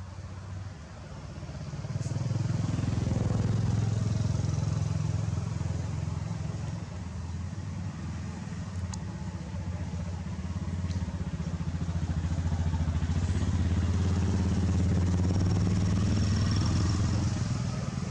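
A vehicle engine running low and steady close by; it comes up about two seconds in, dips briefly in the middle and drops away near the end.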